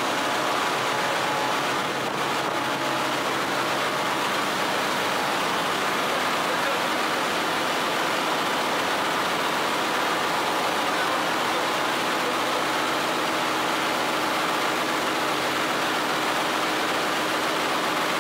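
Ship's engine-room machinery noise: a steady, dense roar with faint hum tones running through it, unchanging throughout.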